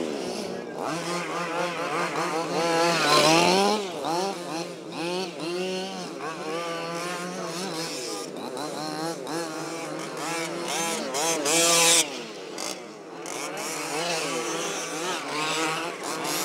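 Several 1/5-scale RC trucks' small two-stroke petrol engines running at once, their pitch rising and falling over and over as the throttles open and close. About twelve seconds in there is a loud rush of noise that cuts off suddenly.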